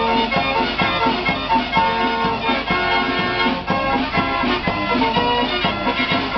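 Fairground organ playing a lively tune: held notes over a steady beat.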